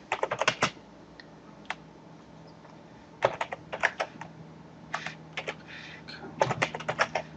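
Typing on a computer keyboard: several quick bursts of keystrokes separated by short pauses, over a faint steady low hum.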